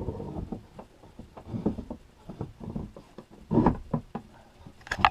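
Irregular light knocks and clunks from a cut wooden board being handled and fitted for a TV mount, with a louder cluster of knocks about three and a half seconds in and again near the end.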